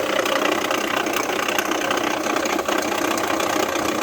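Jeep Renegade 1.8 flex engine idling with a loud, steady, rapid clatter. The mechanic suspects a failing water pump.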